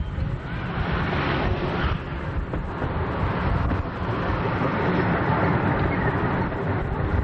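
A 15-inch gauge miniature railway train running, a steady rumble with wind buffeting the microphone.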